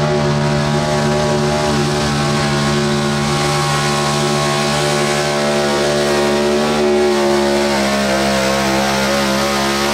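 Big-block Chevrolet V8 in a GMC Sonoma Pro Stock pulling truck, running at high revs under full load while dragging a pulling sled. The pitch holds steady, then sags slightly over the last few seconds as the load builds.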